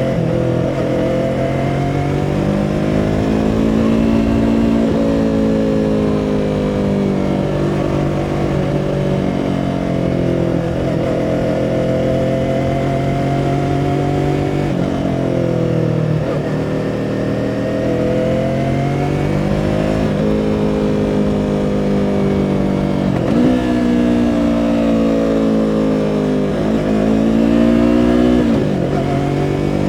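2017 Yamaha R3's 321 cc parallel-twin engine running under way, its pitch climbing and falling as the revs change, with several sharp drops in pitch over the stretch.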